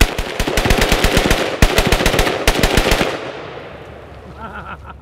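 Romanian AKM-pattern rifle in 7.62×39 fired rapidly in three quick strings of shots over about three seconds, the reports echoing and fading away about a second after the last shot.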